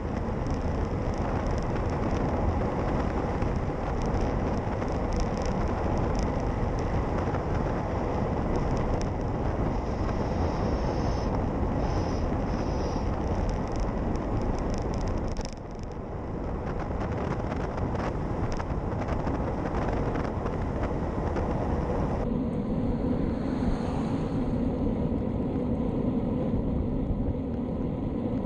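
Steady wind rush on a handlebar-mounted action camera's microphone as a road bike rolls along at speed, with a short dip about halfway through and a change in tone about three-quarters of the way in.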